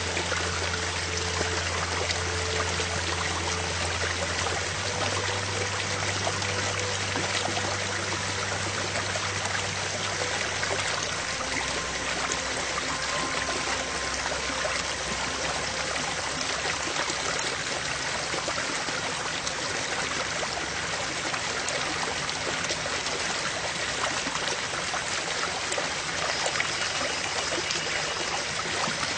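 Background soundtrack of steady rushing, stream-like flowing water, with soft low sustained notes beneath that change about eleven seconds in.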